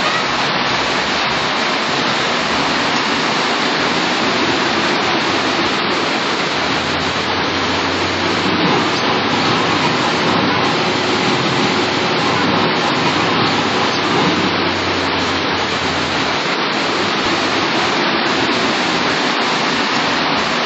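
Heavy rain falling steadily, a loud, dense hiss. From about seven seconds in to about sixteen seconds, a passing vehicle's engine hums low underneath it.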